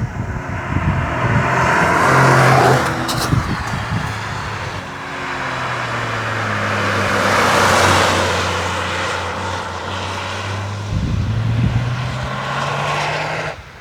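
Turbocharged three-cylinder engine and exhaust of a chiptuned Toyota GR Yaris running. The pitch climbs over the first few seconds, then holds steady while the overall sound swells and eases, with a short sharp click about three seconds in. The sound drops away abruptly near the end.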